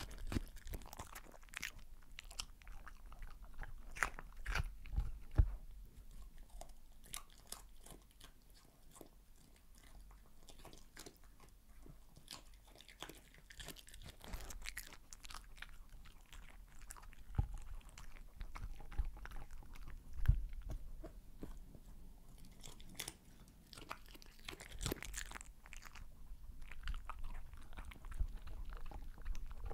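A dog eating sweet potato, black beans and shredded cheese off a tabletop, close-miked: irregular wet chewing, mouth smacks and licking, heard as scattered sharp clicks with a few louder bursts of bites.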